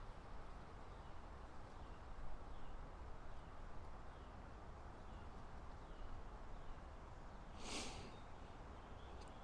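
Steady outdoor background with a bird's faint chirps repeating about every two-thirds of a second. A short hiss sounds about eight seconds in.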